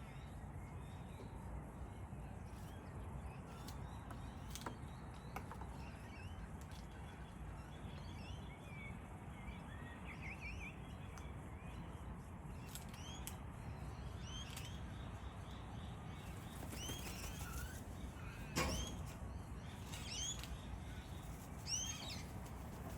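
Wild parrots calling: short, repeated high chirps through the second half, and one loud, harsh screech a little over two-thirds of the way through, over a steady low background noise.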